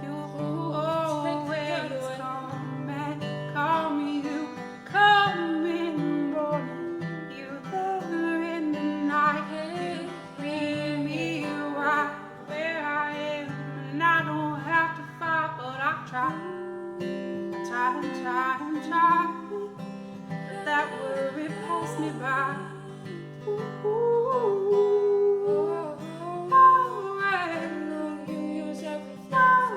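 Music: a strummed acoustic guitar accompanying singing in a worship song.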